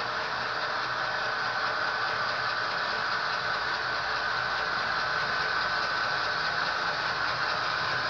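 HO-scale model diesel locomotive's sound decoder playing a steady diesel engine running sound through its small speaker, with a constant high whine over it.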